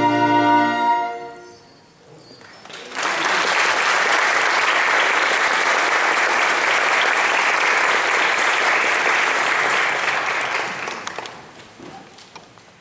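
The orchestra's final held chord sounds for about a second and dies away, then the audience applauds steadily for about eight seconds, the clapping tapering off near the end.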